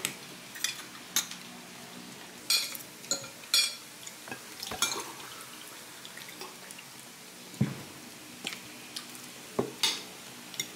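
Metal spoons and forks clinking and scraping against ceramic plates during a meal, in irregular sharp clinks every second or so over a faint steady room hiss, with a couple of duller knocks on the table late on.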